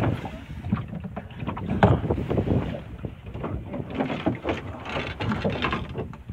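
Wind buffeting the microphone and water sloshing against a small open boat, with irregular knocks and rumble from the boat and from the handheld camera. There is no steady engine note.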